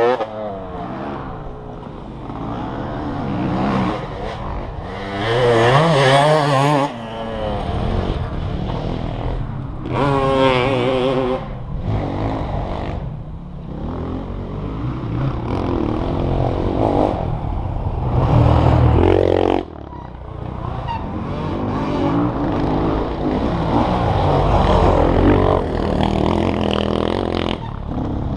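Off-road motorcycle engines revving up and down on a dirt track, with louder passes about six seconds in, around ten seconds in and around eighteen seconds in, the last one cutting off abruptly.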